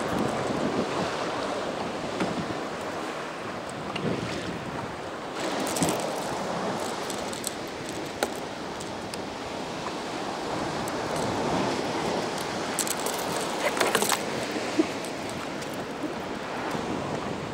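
Sea water lapping and splashing around a kayak, with wind on the microphone. Scattered small clicks and rattles come from fishing tackle being handled, with a quick cluster of them about three-quarters of the way through.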